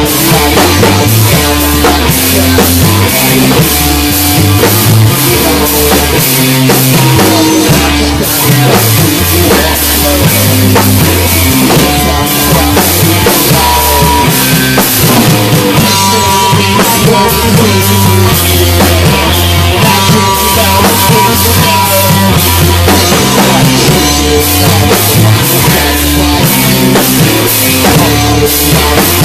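A rock band playing loudly at practice: a drum kit keeping a steady beat under a bass line that moves note to note.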